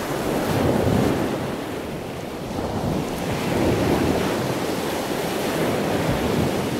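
Ocean surf washing onto a sand beach, swelling about a second in and again near four seconds, with wind noise on the microphone.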